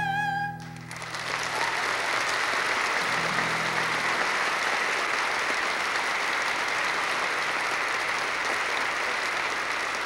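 Audience applauding after a song. The song's final held note, sung with vibrato over acoustic guitar, stops about half a second in, and steady applause takes over.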